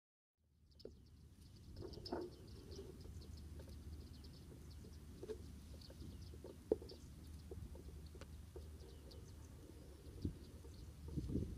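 A foraging flock of bearded reedlings giving many short, high calls over a low rumble, with a sharp click midway and a few low knocks near the end.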